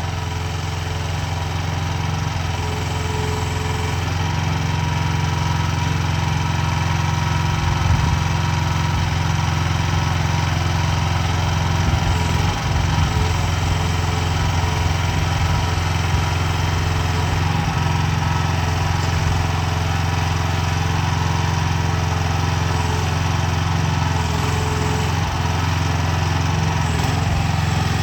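Small single-cylinder Rato 420cc gas engine of a mini hydraulic excavator running steadily, a little louder over the first few seconds, with a few brief knocks in the middle.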